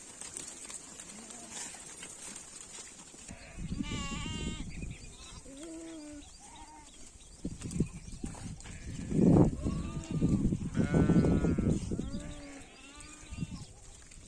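Sheep bleating: about half a dozen separate calls from several animals, of varying pitch. The loudest two are close and strong, a little past the middle.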